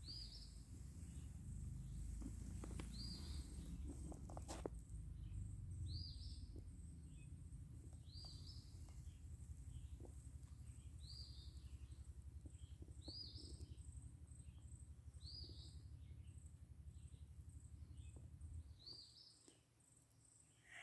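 A bird repeating a short, high call about every two seconds, faint, over a low rumble.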